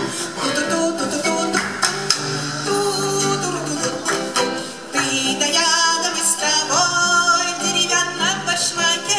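Lively live folk dance music: acoustic guitar with a melody line and light percussion keeping a quick beat, with a couple of rising slides in the melody in the second half.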